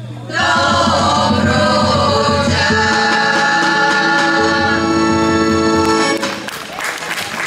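Women's folk choir singing in unison with accordion accompaniment, closing on a long held chord that cuts off about six seconds in. Applause starts right as the song ends.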